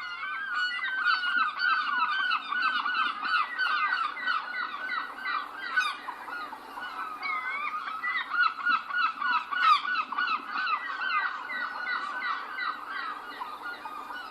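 A flock of gulls calling all at once, many birds overlapping in a dense chorus: occasional longer calls among rapid runs of short, repeated calls.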